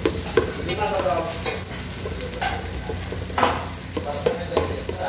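Sliced onion and garlic sizzling in oil in an aluminium pot while a knife blade stirs them, clicking and scraping against the metal several times.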